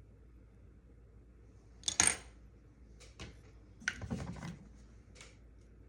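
Small hard objects clinking and clattering on a surface: one sharp clink about two seconds in, then a few light clicks and a brief rattling cluster about a second later.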